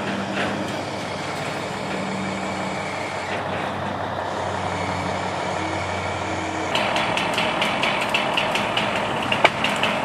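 Heavy crane truck engine running steadily while it lowers a cut tree section. About seven seconds in, the engine gets louder with a fast, even rattle. Near the end there is a single sharp crack.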